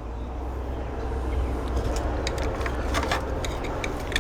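Light clicks and taps of hands handling the plastic parts of an opened tower fan, from about two seconds in, over a steady low hum and whooshing noise.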